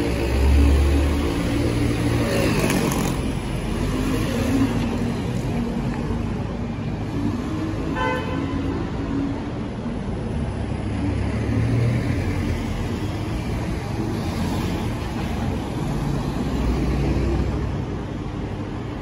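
Street traffic: a London double-decker bus passes close by in the first second or two, with cars and buses running steadily through, and a short vehicle horn toot about eight seconds in.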